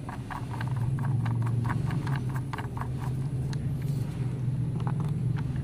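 A toy screwdriver clicking as it turns a plastic screw into a take-apart toy car's wheel, about four clicks a second, then a few scattered clicks, over a steady low hum.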